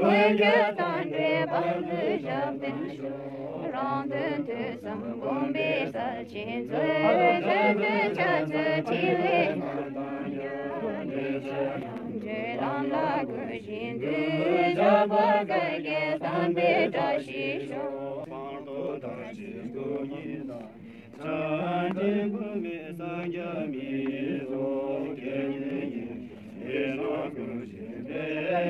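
A group of voices chanting a Tibetan Buddhist prayer together, a melodic chant that rises and falls in pitch and runs on with only brief pauses for breath.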